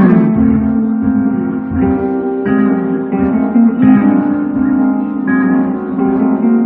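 Electric guitar played live through an amplifier: a slow line of held notes, a new note struck about every half second to a second.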